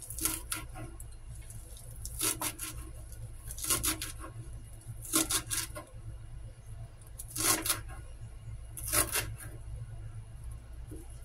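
Knife cutting through fresh vegetables on a cutting board: six short bursts of a few crisp strokes each, about every second and a half, over a steady low hum.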